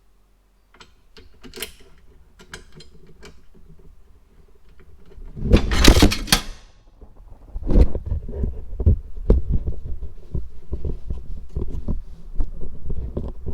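Hardware being handled: scattered clicks, then a loud scraping rustle about halfway through, followed by a run of low knocks and thumps.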